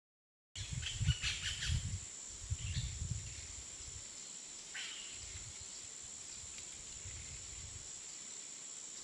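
Faint outdoor ambience that starts suddenly about half a second in: a steady high-pitched whine, a few short bird chirps in the first five seconds, and a low rumble that comes and goes.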